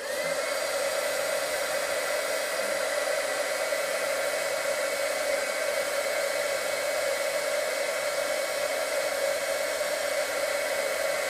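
Handheld embossing heat gun switched on, its faint whine rising quickly to a steady pitch, then running steadily with a blowing rush of hot air as it melts embossing powder on a paper strip.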